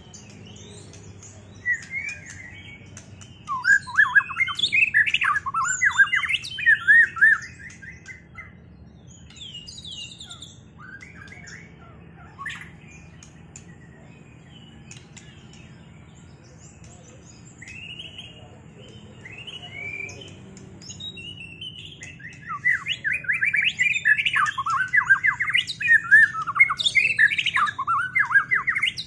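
White-rumped shama (murai batu) singing in rapid bursts of varied, sliding whistled phrases. It sings in a duel, matched against another bird. There are two loud bouts, one a few seconds in and one from about two-thirds of the way through, with scattered quieter calls between them.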